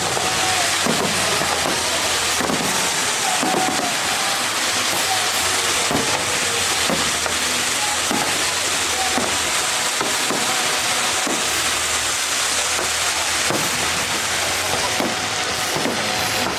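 Fireworks going off in a display: a steady, dense crackling hiss with irregular short bursts every second or so, and faint music underneath.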